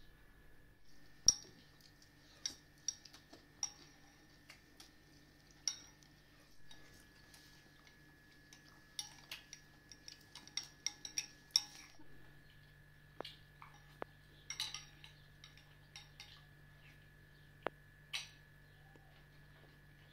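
Metal spoons clinking and scraping against ceramic soup bowls as people eat: sharp, irregular clinks, with one loud clink about a second in and a quick run of them in the middle.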